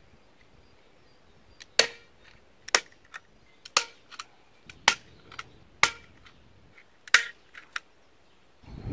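Six sharp strikes about a second apart, each with a lighter click just before it: a tool fastening a makeshift wooden pea trellis together.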